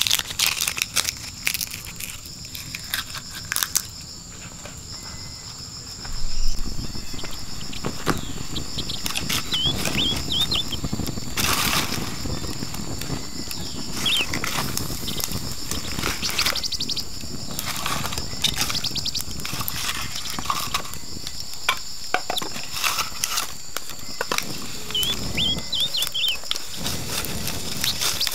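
Campfire of sticks and split bamboo burning with a steady crackle, starting about six seconds in, with occasional wooden knocks as bamboo tubes are handled. Insects chirr steadily at a high pitch throughout.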